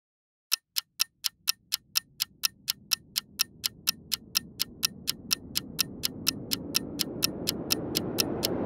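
Ticking-clock sound effect, about five ticks a second, over a swell of noise that grows steadily louder: a time-passing transition laid in the edit.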